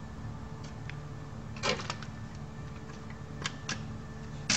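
Light clicks and knocks of the embroidery machine head being fitted onto its mounting: a pair about two seconds in, two faint ticks later, and a sharper knock near the end, over a low steady hum.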